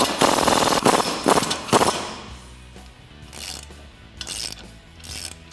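A ratchet turning a 21 mm bolt on a Jeep Wrangler JK's front lower control arm mount: a fast run of metallic clicks for about two seconds, then three short bursts of clicks as the handle is swung.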